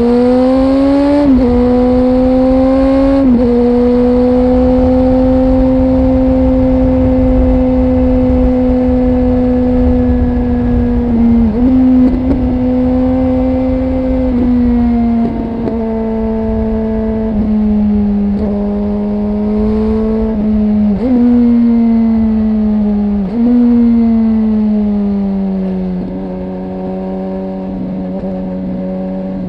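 Suzuki GSX-R 1000's inline-four engine through an aftermarket exhaust under way: it pulls up through two quick upshifts in the first few seconds, holds a steady cruise, then goes through several short throttle lifts and gear changes with the pitch dipping and picking up again, settling at lower revs near the end. Wind rush sits underneath.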